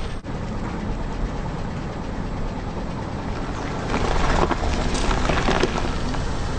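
Car engine running low and steady as the car creeps forward. About four seconds in, a crackling crunch lasting nearly two seconds as the tyre rolls over and crushes an object.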